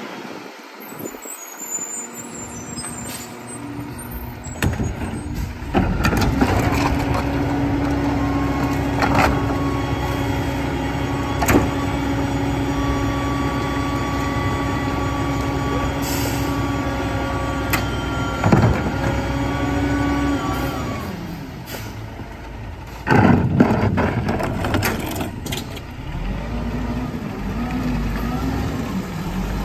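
A 1997 Mack RD rear-loader garbage truck with its diesel engine raised to a steady held note for several seconds while the hydraulic packer compacts trash in the hopper, with knocks of bins and trash going in. Near the end comes a loud burst of air hiss from the air brakes, then the engine pulls the truck away.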